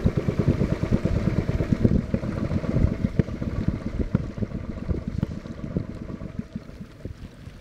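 Wind buffeting the microphone of a camera on a small moving river boat: an irregular low rumble and flutter that eases off toward the end.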